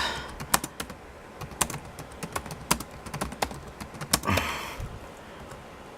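Computer keyboard being typed on: irregular key clicks, with a brief breathy hiss about four seconds in.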